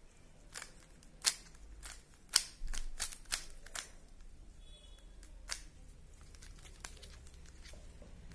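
Plastic Rubik's Cube layers twisted by hand: a quick run of sharp clicks over the first four seconds, then a few scattered ones.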